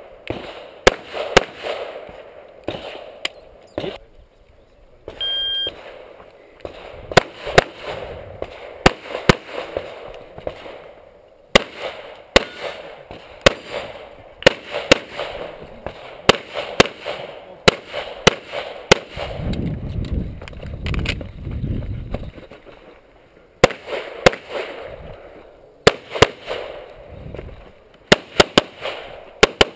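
Pistol shots fired close to the microphone in quick strings of two to four, with short pauses between strings while the shooter moves between positions in an IPSC practical-shooting stage. A short electronic beep sounds about five seconds in.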